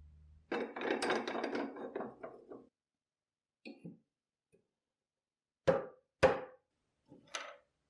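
Wood chisel knocked into the rotten wooden grip of a rusty bayonet to split off the old handle scales: sharp wooden knocks, the two loudest about half a second apart in the second half, after a couple of seconds of dense clattering.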